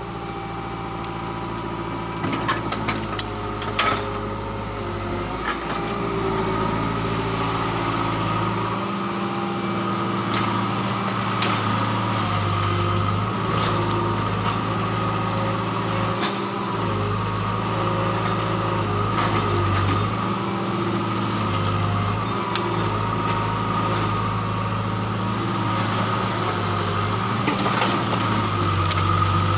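Hitachi hydraulic excavator's diesel engine running and working, its pitch stepping up and down as the hydraulics take load. There are scattered sharp cracks and knocks, several close together a few seconds in.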